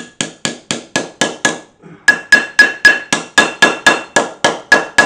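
Hammer striking metal in steady blows about four a second, each blow ringing. A short pause about a second and a half in, then the blows carry on harder.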